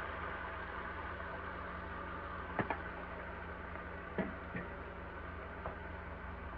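Skillet of pink salmon and vegetables in sauce simmering on the stove: a steady low hiss and hum with a few faint ticks and pops, two close together about two and a half seconds in, two more around four seconds and one near the end.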